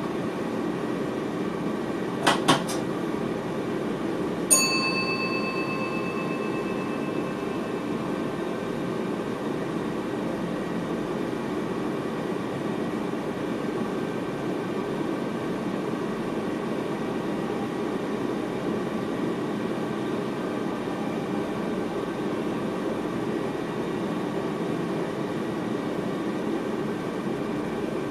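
Steady running noise inside the driver's cab of an NS VIRM double-deck electric train. About two seconds in come three quick clicks, then a single bright chime that rings and fades over a couple of seconds.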